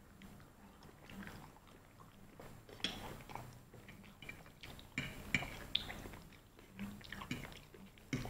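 Close-up chewing and biting of KFC fried chicken, with wet mouth sounds and sharp crunchy clicks that come thicker about three seconds in.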